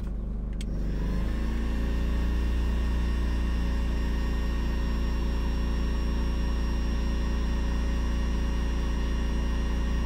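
Electric heat gun switched on about a second in, then running steadily, its fan motor giving a constant whirring hum while it blows hot air to shrink a heat-shrink sleeve over a soldered XT90 connector.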